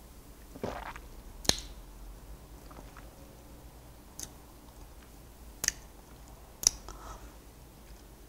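Quiet mouth sounds of a person tasting a sip of red wine. A short breathy rush comes about half a second in, then four sharp, separate lip and tongue clicks about a second or more apart.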